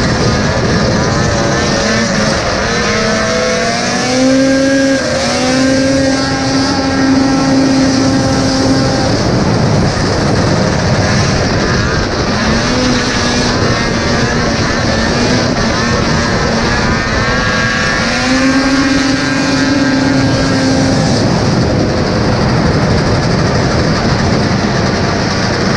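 Vintage racing snowmobile's two-stroke engine running hard at speed. Its pitch climbs and then holds twice, about four seconds in and again near eighteen seconds, as it accelerates. A steady rush of wind and track noise runs under it.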